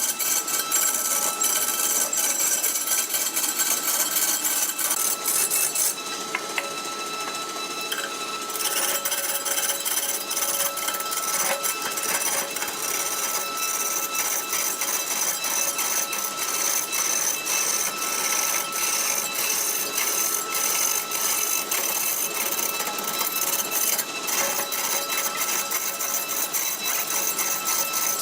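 Wood lathe running while a turning tool cuts the spinning wood: a steady machine tone under a rapid, dense chatter of cutting. The cutting eases off for a couple of seconds about six seconds in.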